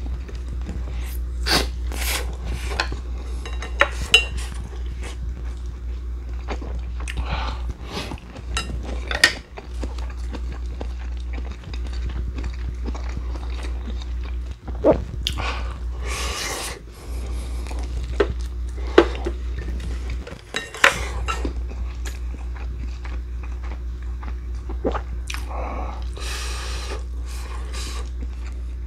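A man eating a meal: chewing with mouth sounds, and cutlery clicking against bowls, over a steady low hum.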